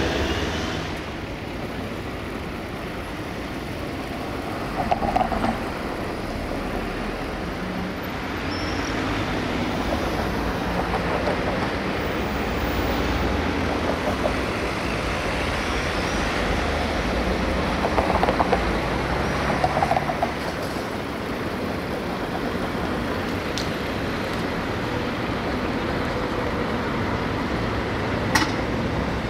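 Street traffic with a low-floor tram and road vehicles passing, a steady rumble with a few brief louder, higher-pitched moments.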